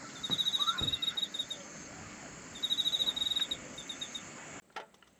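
Cricket chirping in trains of quick, high, pulsed chirps: two runs of about a second each and a shorter burst. The background cuts off abruptly near the end.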